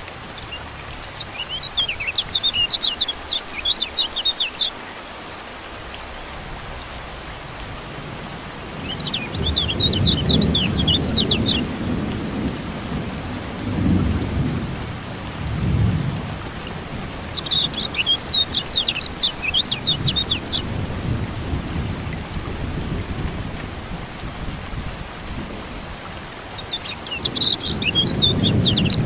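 Steady rain with low rolling thunder rumbles, and a kecial kuning white-eye's rapid, high chirping song coming in four bouts of a few seconds each.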